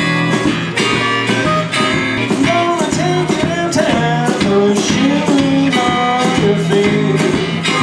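Blues harmonica and electric guitar playing together. The harp holds and bends notes over a steady strummed guitar rhythm.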